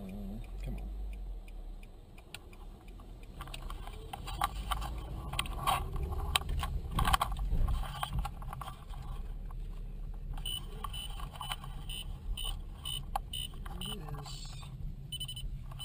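A car driving slowly, heard from inside the cabin: a steady low rumble with clicks and rattles, and a high beep repeating about twice a second in the last five seconds.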